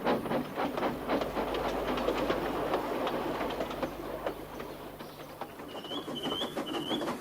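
Steam locomotive sound effect getting under way: rhythmic exhaust chuffs and clickety-clack of wheels on rail joints, the beats quickening and then fading about five seconds in. A bird chirps three times near the end.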